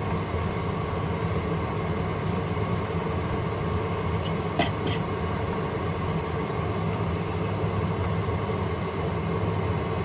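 Steady low hum with an even hiss over it as chili paste simmers in a frying pan after water has been added; a spatula clicks once against the pan about halfway through.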